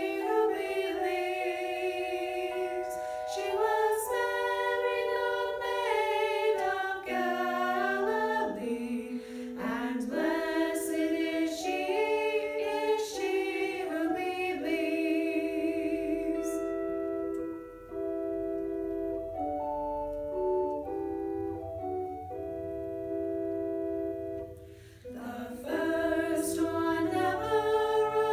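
Three women singing a Christmas song in close harmony, held notes wavering with vibrato. For several seconds past the middle the sound turns softer and steadier, held tones over a low hum, before the full singing comes back near the end.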